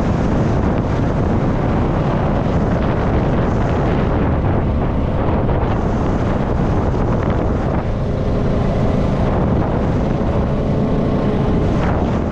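Spring-runoff water rushing, a loud steady roar of flowing water.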